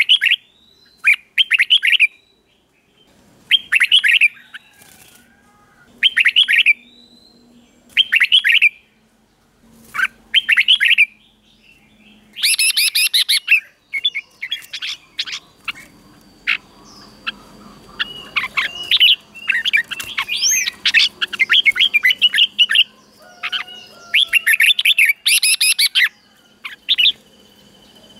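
Red-whiskered bulbul singing: short, loud, clear phrases repeated about every two seconds, then from about halfway a denser run of song and quick chattering notes. A faint steady high tone sits behind the second half.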